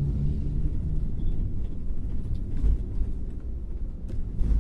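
Steady low rumble of a vehicle driving along a road: engine and road noise. A few brief louder thumps come through, about two and a half seconds in and near the end.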